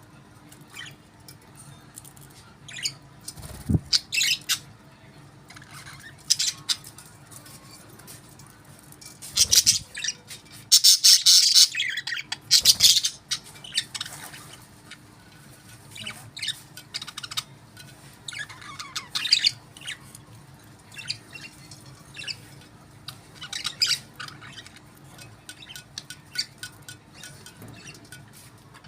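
Budgerigars chirping and squawking in short, irregular calls, with a loud, busy stretch of squawking about eleven seconds in.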